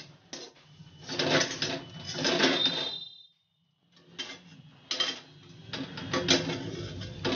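Metal spatula scraping and clanking against a steel kadhai while an onion and spice masala is stirred and fried: two spells of scraping, a brief dropout a little past three seconds in, then a run of sharp knocks.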